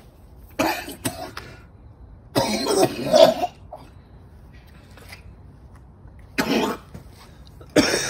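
A man coughing and hacking in four fits, the longest and loudest about two and a half seconds in, from pepper powder he has breathed in.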